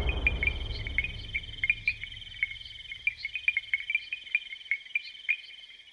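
Crickets trilling steadily at night, with a string of short, sharp chirps over the trill. The tail of background music fades out in the first second or so.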